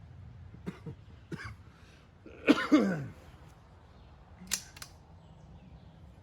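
A man coughing or clearing his throat, a couple of harsh bursts about two and a half seconds in, followed by two sharp clicks a little later.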